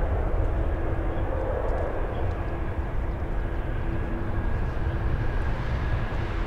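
Airbus A330-300's Rolls-Royce Trent 700 engines at takeoff thrust during the takeoff roll: a steady low rumble with a faint steady whine over it.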